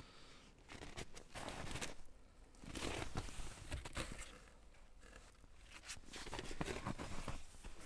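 Footsteps crunching through snow with rustling of heavy clothing, in three uneven bursts of a second or two each.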